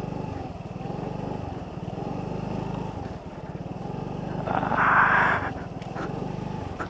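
Motorcycle engine running at low speed over a rough dirt road: a steady low hum with a regular wavering. About five seconds in there is a brief, louder rush of noise.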